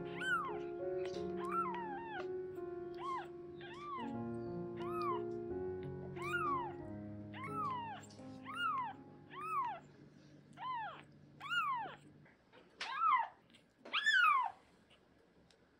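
A ten-day-old kitten mewing over and over, about one short high cry a second, each rising then falling in pitch, the last few louder. Background music plays under the cries and stops about twelve seconds in.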